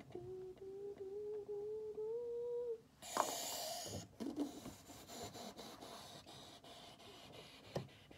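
A girl hums one long note that slowly rises in pitch for nearly three seconds. Then drawing strokes scratch on notebook paper, loud and rough for about a second, then quieter short strokes.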